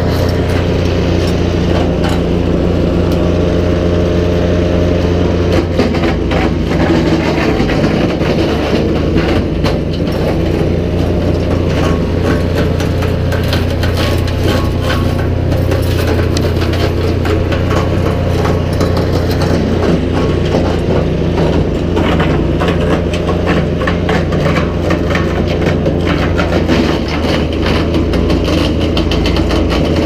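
Nova GTS1500 wood chipper's engine running steadily at a constant speed, with scattered short cracks and rustles over it.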